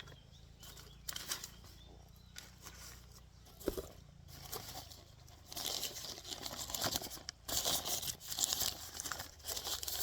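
Packing wrap crinkling and tearing as a succulent is unwrapped by hand: scattered rustles at first, then denser, louder crinkling from about halfway through.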